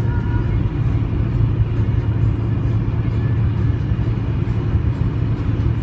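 Steady low drone of a car at highway speed heard from inside the cabin: engine and tyre road noise without change, with faint music underneath.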